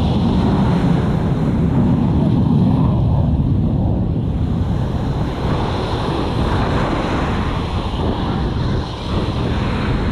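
Small waves breaking and washing up the sand, with wind buffeting the microphone in a steady low rumble.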